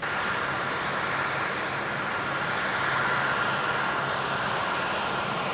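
KC-135 Stratotanker's CFM56 (F108) turbofan engines running at low power as the tanker rolls along the runway: a steady jet rush with a high whine that swells slightly about three seconds in.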